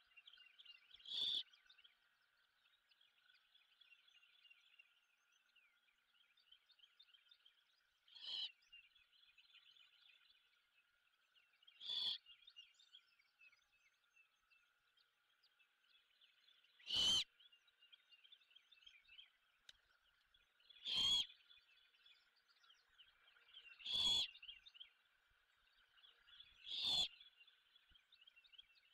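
Great horned owlet giving short hissing begging screeches, seven in all, every three to five seconds, over a faint steady background chorus of small chirps.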